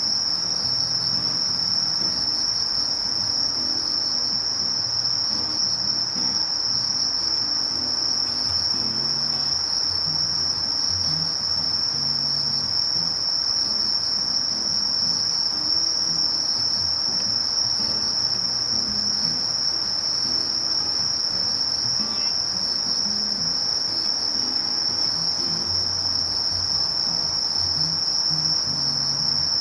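Sasakiri katydid (Conocephalus melaenus) singing, a continuous high-pitched buzzing trill held without a break.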